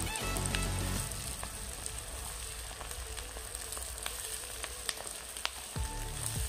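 Sliced onions sizzling as they fry in hot mustard oil in a wok-style pan, being browned lightly. A wooden spatula stirs them, with scattered light knocks and scrapes against the pan.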